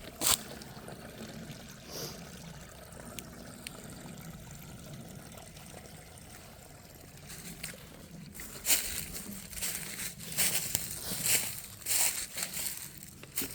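Shallow creek water trickling. About two-thirds of the way in, a run of irregular footsteps on the firm creek bed comes in over it.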